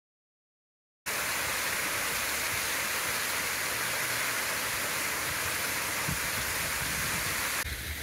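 Water pouring down a stepped stone mill dam, a steady rushing hiss that starts abruptly about a second in. Near the end it cuts to a softer hiss.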